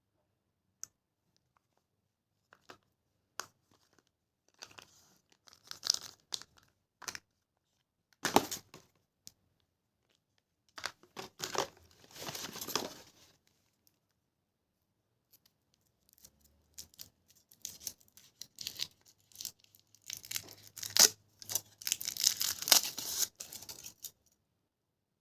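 Chocolate and candy wrappers being torn open and crinkled by hand: separate bouts of crackly rustling and sharp clicks with quiet gaps, the longest and loudest bout in the last third.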